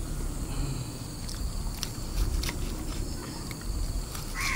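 A knife cutting through crispy battered fried pork on a wooden chopping board, giving scattered crunches and taps.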